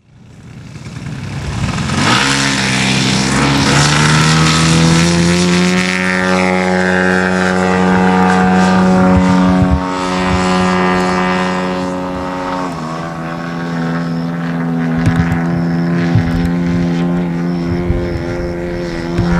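Propeller airplane's engine droning steadily in flight. It fades in over the first two seconds and shifts slightly lower in pitch about two thirds of the way through.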